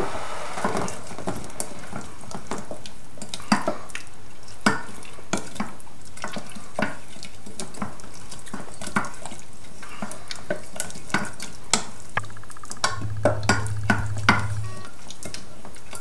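Wooden spoon stirring thick fruit compote in a small saucepan, with irregular clicks and knocks of the spoon against the pan over a steady hiss of the simmering fruit.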